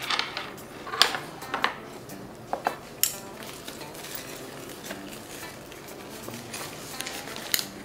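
Tableware clinking: chopsticks and hard crab shells knocking against ceramic plates and bowls, a handful of sharp clicks in the first three seconds and one more near the end.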